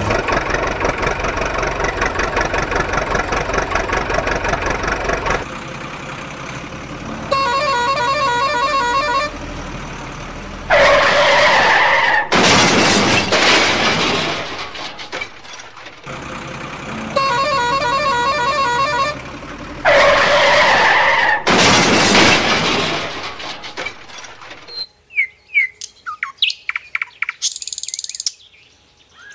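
Added truck sound effects: an engine running with a steady rhythm for about five seconds, then a horn blown twice for about two seconds each, each followed by loud rushing noise. Short bird chirps come near the end.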